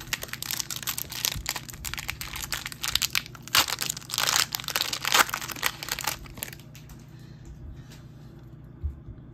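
Foil wrapper of a Topps Chrome trading-card pack being torn open and crinkled: dense crackling for about the first six seconds, then quieter handling.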